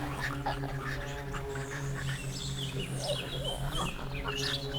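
Birds chirping and trilling in short high calls, over a steady low held tone.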